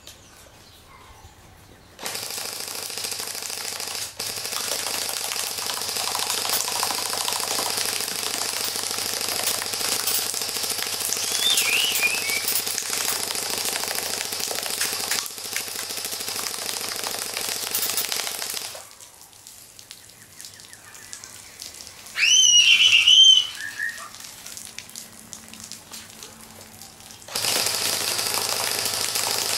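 Airsoft AK-47 electric gun firing on full auto in two long continuous runs, a fast steady rattle, stopping for several seconds between them. In the pause there is one loud, short chirp, and a fainter one is heard during the first run.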